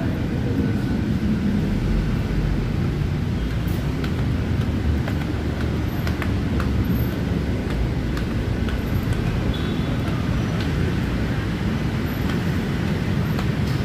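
Steady rumble of city road traffic, cars and motorbikes running on the street, with a few faint clicks.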